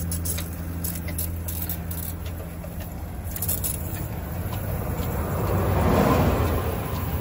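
Three-cylinder diesel engine running with a steady low hum, which swells into a louder rushing sound about five to seven seconds in before easing.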